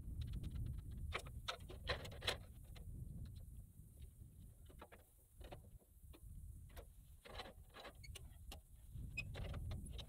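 Faint, irregular clicks and light knocks of hands working the steel track and parts of a portable bandsaw mill, over a low rumble of breeze on the microphone.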